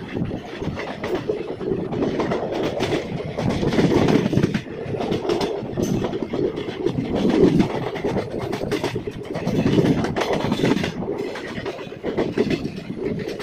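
Rajya Rani Express passenger train running at speed, heard from an open coach doorway: a loud continuous rumble of wheels on rails, with many quick clacks over rail joints, swelling and easing several times.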